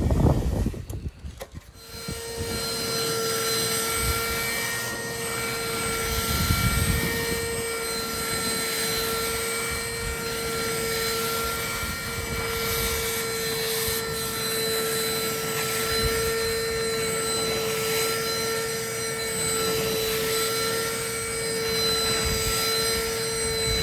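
Portable carpet extractor's vacuum motor comes on about two seconds in and runs with a steady whine and hiss as the wand draws water out of the rug on extraction passes.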